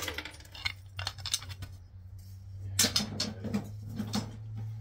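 Metal clinks and clatter from tools and hardware being handled: a sharp knock, then scattered clicks and two louder bursts of rattling, over a steady low hum.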